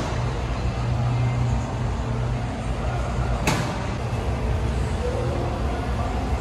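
A vehicle engine running at a steady idle, with one sharp click about three and a half seconds in.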